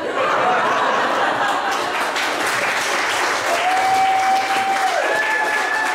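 Audience applauding and cheering, starting at once. A couple of long held calls ring out over the clapping in the second half.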